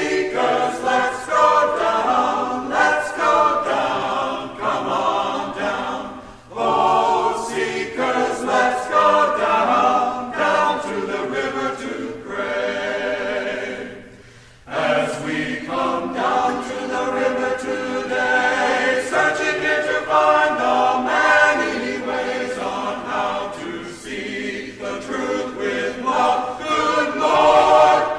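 A choir singing in long sustained phrases, with brief breaks about six and fourteen seconds in.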